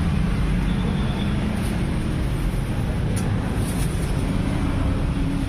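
Steady low rumble of street traffic, with a few faint clicks.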